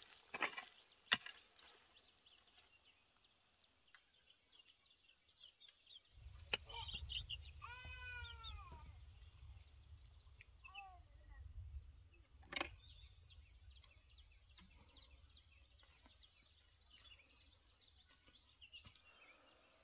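A hoe blade strikes dry soil a few times in the first second. About eight seconds in an animal gives one drawn-out, falling call, followed by a few short faint calls and a single sharp knock a little later.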